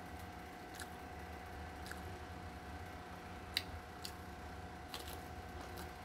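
A person eating by hand, chewing leafy greens and rice, with a few short wet mouth clicks and smacks, the loudest about three and a half seconds in, over a steady hum.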